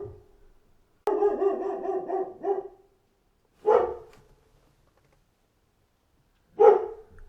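Dog barking: a longer run of barks lasting under two seconds, starting about a second in, then two single barks about three seconds apart.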